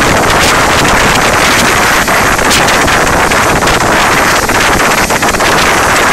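Mil Mi-8-family transport helicopter running on the ground close by: a loud, steady roar of turbines and turning rotor, with the rotor's downwash buffeting the microphone.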